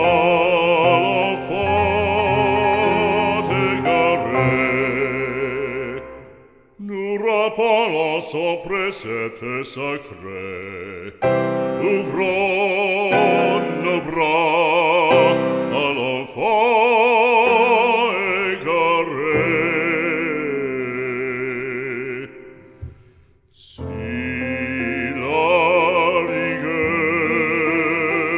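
Background music: a song with a sung melody in heavy vibrato, in an operatic style. It drops out briefly twice, about six seconds in and again near twenty-three seconds.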